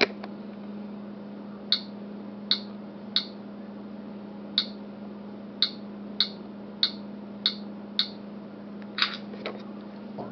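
Typing a password on a Nabi 2 tablet's on-screen keyboard: about a dozen short, sharp key clicks at uneven intervals, over a steady low hum.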